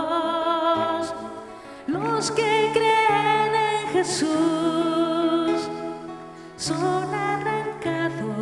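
A sacred song: a voice singing long, wavering held notes over sustained accompaniment, in phrases with short breaks between them.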